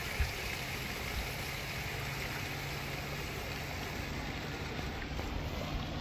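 Steady splashing and hiss of a pond fountain's water spray, over a low rumble, with one brief thump just after the start.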